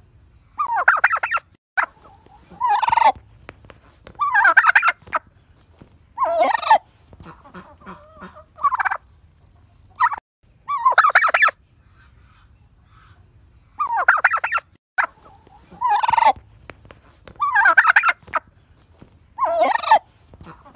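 Male turkey gobbling over and over: about ten rattling gobbles, each under a second long, coming every one to two seconds.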